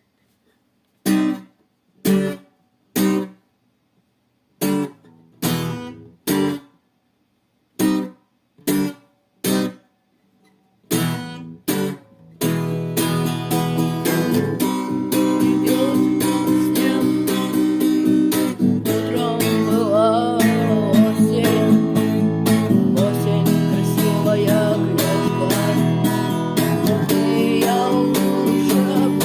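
Opening of a guitar rock song. About a dozen short strummed guitar chords are played with pauses between them, then about twelve seconds in the full band starts: guitars and bass over a drum machine, with a lead guitar melody on top.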